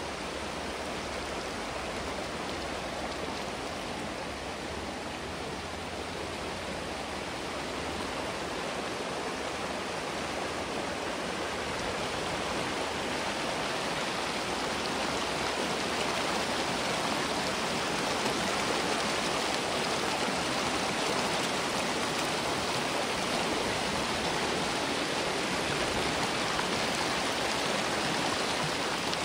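Creek water running in a steady rush, growing a little louder over the first half.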